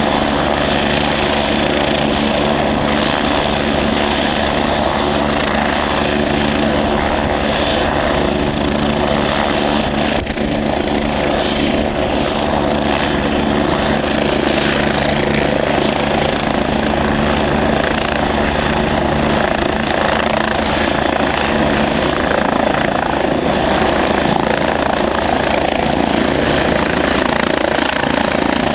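Air ambulance helicopter running steadily, its rotor and turbine making a constant loud din with a high turbine whine that rises slightly in pitch in the second half.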